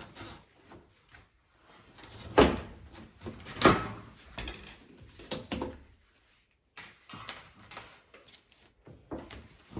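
Knocks and rattles of washing machine panels and parts being handled during disassembly, with the loudest strikes about two and a half and three and a half seconds in and a smaller one about five seconds in.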